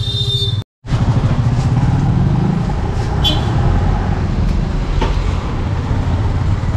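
Roadside traffic noise: a steady rumble of passing vehicles and engines. It cuts out completely for a moment less than a second in, and a short high chirp sounds about three seconds in.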